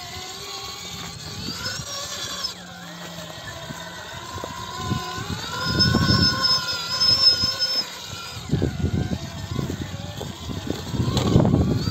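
Holmes Hobbies Revolver V2 2500kv brushless motor and drivetrain of an Axial Capra RC rock crawler whining. The pitch rises about five seconds in and holds for a few seconds, and irregular bumps and scrapes come in as the tyres go over stone.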